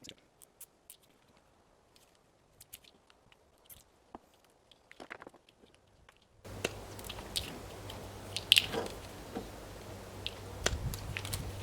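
Scattered small clicks and handling knocks, as of a cable and plastic connector being handled. About six and a half seconds in, a steady low hum starts suddenly and runs on under further clicks.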